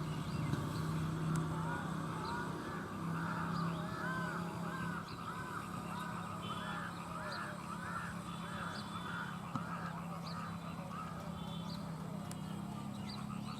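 Mynas calling: a long run of repeated arched notes, about two a second, over a steady low hum.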